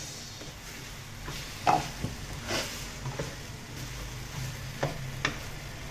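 Wooden spatula stirring and scraping a thick diced-potato filling around a frying pan over the gas flame, the mixture sizzling softly, with a few sharper scrapes and knocks of the spatula against the pan.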